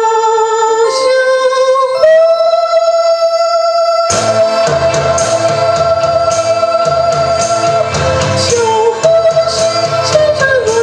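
A song sung in a high, female-style voice for the ventriloquist's puppet, over musical accompaniment. The voice holds one long note for several seconds, and the full backing band with drums comes in about four seconds in.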